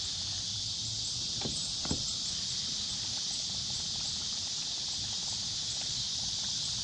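Steady high-pitched chorus of insects such as crickets or katydids, with a couple of short knocks about one and a half and two seconds in.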